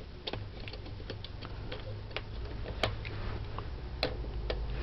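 Light scattered clicks and ticks of wires being pressed into the metal clips of a 66 punch-down block and snapped down with an impact punch-down tool, with two sharper clicks about three and four seconds in, over a low steady hum.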